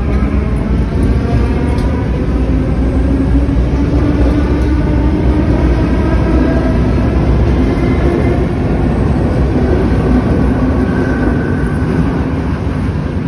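Cairo Metro Line 1 Alstom 1981-stock (5700 series) electric train pulling out of an underground station and running past car by car, with wheel and rail rumble. Its traction motors whine in several tones that rise in pitch as it gathers speed. The sound drops away at the very end as the last car goes by.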